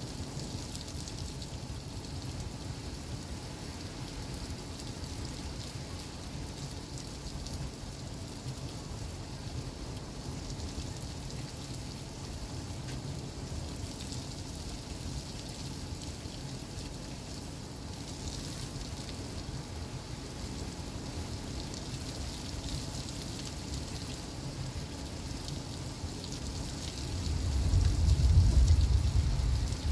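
Heavy thunderstorm rain falling steadily in a hiss, with gusty wind rumbling low underneath. Near the end a loud low rumble swells for about two seconds.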